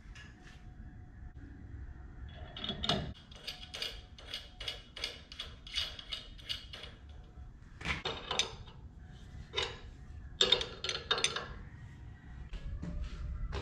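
Hand wrench working the mounting bolt of an LED light pod on a metal bracket: a run of light metallic clicks a few per second, then several louder knocks and clanks.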